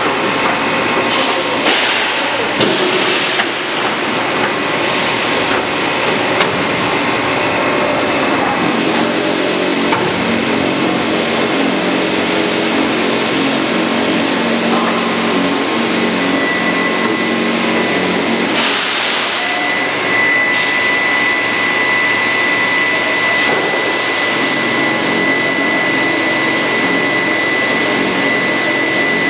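Grinding-ball production line machinery running with a steady, loud mechanical noise. A low hum comes in for about ten seconds in the middle, and a constant high whine joins about halfway and holds. There are a few brief knocks in the first few seconds.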